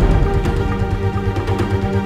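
Background music: sustained chords over a steady beat.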